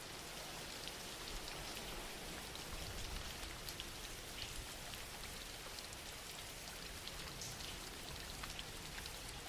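Steady gentle rain, an even hiss with scattered individual drops pattering on a surface.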